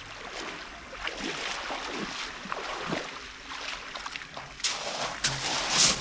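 Sea waves washing on the shore, with wind on the microphone; two louder rushes of surf near the end.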